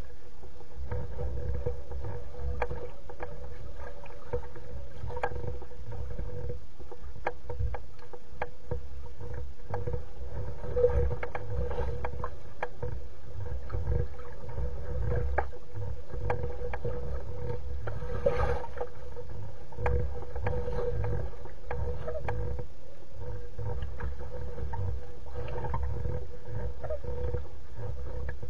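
Small waves lapping against the edge of a loon's reed nest: a steady, uneven low rumble of water with many small splashes and clicks.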